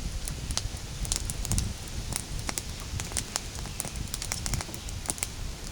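Wood fire burning in a hobo stove: irregular crackles and pops over a low rumble.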